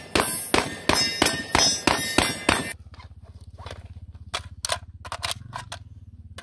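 Ruger Mini-14 Ranch Rifle fired rapidly, about a dozen shots at four or five a second, with steel targets ringing under the shots; the string stops short of three seconds in. Then a few separate metallic clicks and clacks as the empty magazine comes out and a fresh one is handled.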